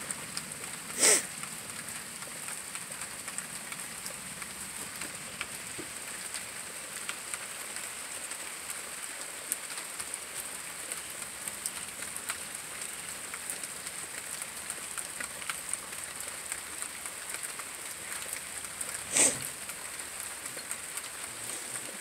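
Steady high-pitched buzzing over a soft hiss, broken by two short, louder rasping bursts: one about a second in and one near the end. The buzzing is the rattle the uploader suspects may be a rattlesnake.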